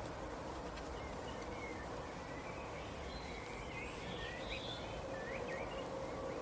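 Faint, short bird chirps and whistled glides over a steady background hiss with a low hum.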